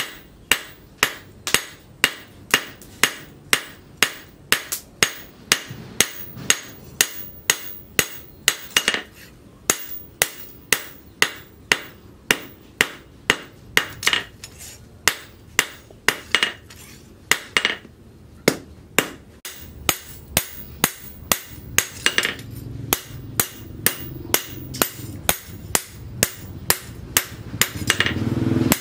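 Hand hammer forging a hot leaf-spring steel knife blade on a steel post anvil: sharp, ringing blows at a steady pace of about two a second.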